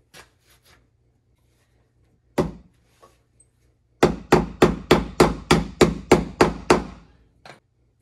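Hammer blows: a single strike, then a quick, even run of about a dozen strikes at roughly three a second.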